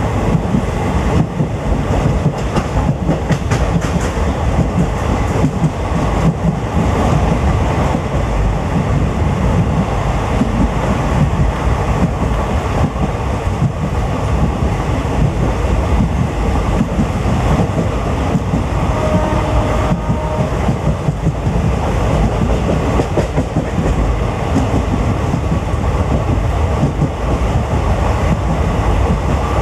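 Train in motion: the steady, loud rumble of the coach and its wheels running on the track.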